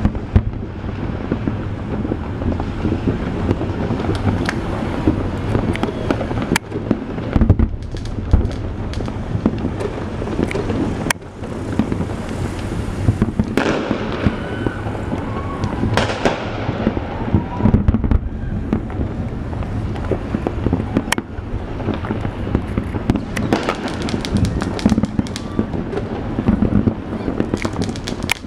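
Distant fireworks going off: a continuous low rumble of far-off bursts, with sharp bangs and crackles scattered throughout.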